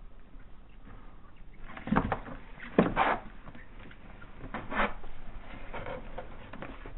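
Black and white tegu's claws scrabbling and scraping on a hard plastic tub as it climbs in and down to its food bowl, with loud knocks and scrapes about two and three seconds in and again near five seconds, and light ticking between.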